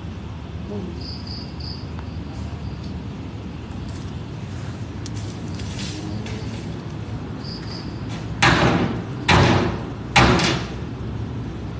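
Crickets chirping faintly in short triple pulses over a low steady background. About eight seconds in come three loud rushing noises, each about half a second long and roughly a second apart.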